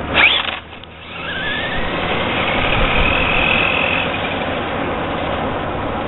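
Full-size pickup truck passing close by, with a high electric whine sweeping up in the first half second, then a second whine climbing about a second in and holding steady until about four seconds in, typical of a Traxxas Bandit VXL's brushless motor at speed.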